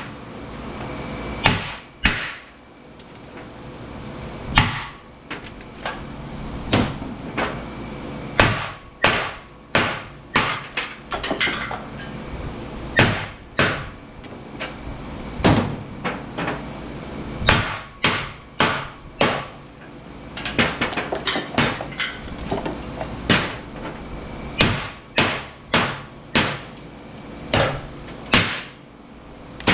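Wedge hammer striking a steel transformer core again and again, irregular metal whacks, some in quick clusters, cracking the welds to break the delaminating laminations apart.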